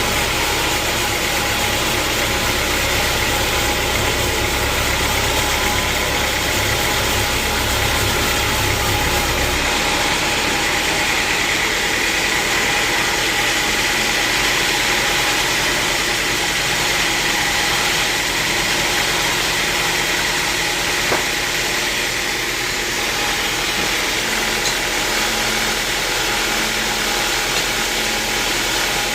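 Sawmill machinery running steadily with a dense mechanical noise; about ten seconds in a low hum drops away and a high whine comes up.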